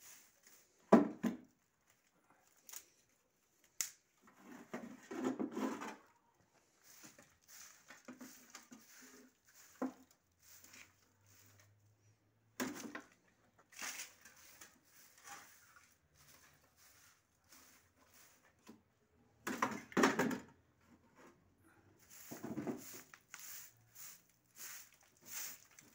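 Short straw hand broom swishing and scraping in irregular strokes over a dirt-strewn concrete floor, with two louder knocks, one about a second in and one near the end.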